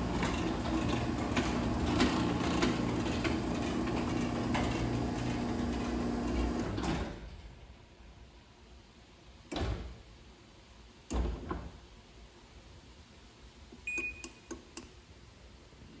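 LiftMaster garage door opener's motor running with a steady hum as it drives the sectional door down during limit programming, stopping about seven seconds in as the door reaches the floor. After that, a couple of short knocks and a few faint clicks with a brief beep.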